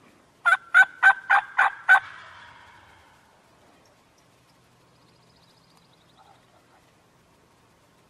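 Turkey calling: a run of six loud, evenly spaced yelps at about four a second, with an echo trailing off after them.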